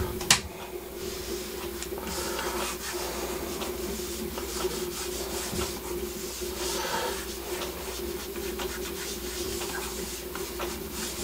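Stylus nib scratching and rubbing over a graphics tablet's drawing surface in quick, short sketching strokes, with a sharp click just after the start and a steady low hum underneath.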